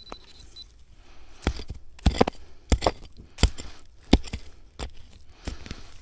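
A hand digging tool striking into the ground about ten times, irregularly, some blows in quick pairs, starting about a second and a half in.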